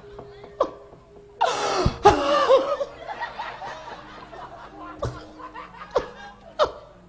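Audience laughter: a loud burst of laughing about a second and a half in, fading to scattered chuckles. Several sharp knocks through it, the dalang's cempala and keprak accents, over faint sustained gamelan tones.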